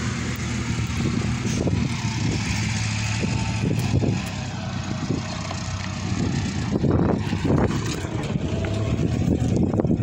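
JCB backhoe loader's diesel engine running steadily, a constant low drone, with a few short knocks over it.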